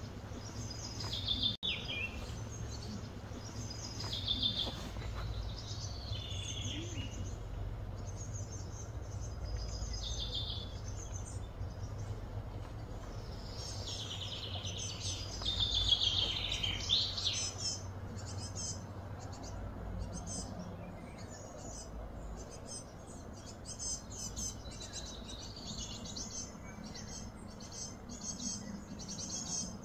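Birds chirping and calling in short repeated phrases, busiest and loudest about halfway through, over a steady low background hum.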